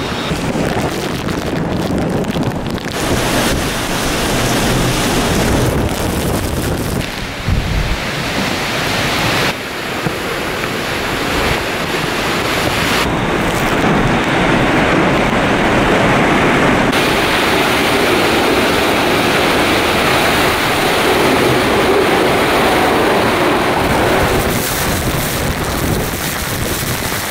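Hurricane-force wind: a loud, continuous rushing noise with gusts battering the microphone, mixed with the hiss of wind-driven rain. The sound changes abruptly several times.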